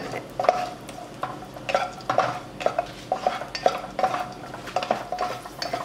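A spatula stirs cashew nuts frying in ghee in a wok. It scrapes and knocks against the pan about twice a second over the sizzle of the frying.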